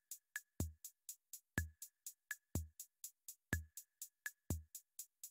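Electronic drum-machine beat marking a timed answer pause: a bass-drum thump about once a second with sharp ticks between, about four a second.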